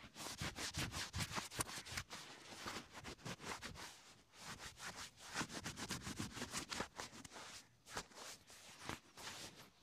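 A cloth rag rubbed briskly over a shoe's treaded sole and edges in quick scratchy strokes, with a couple of short pauses near the end.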